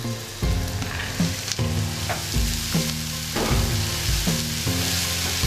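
Hot oil sizzling in a kadai as diced snake gourd is tipped into frying onions, curry leaves and dal, with background music playing along.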